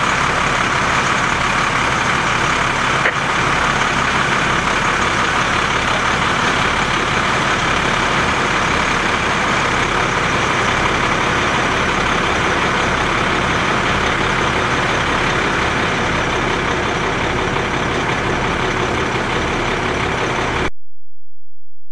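Fire engine's diesel engine running steadily, a dense, even drone with a regular low throb, cutting off suddenly near the end.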